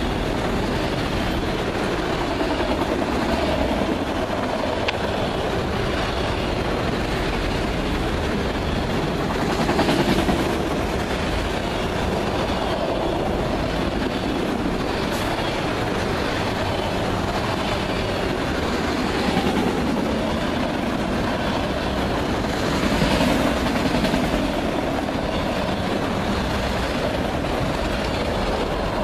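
Freight cars of a passing freight train, autoracks and boxcars, rolling by close at hand: a steady noise of steel wheels running on the rails, swelling briefly a few times.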